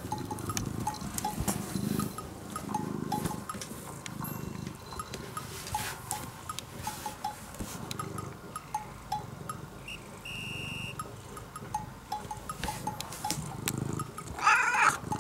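Orange-and-white cat purring close up, in slow rough waves about once a second, then meowing once near the end.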